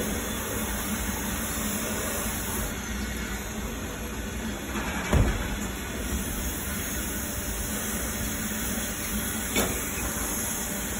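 Pressure washer wand spraying water onto a truck's wheel and tire: a steady hiss of spray, with one short thump about five seconds in.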